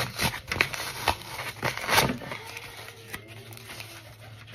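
Crunching of oven-baked cornstarch chunks: several sharp cracks in the first two seconds, the loudest about two seconds in, then quieter.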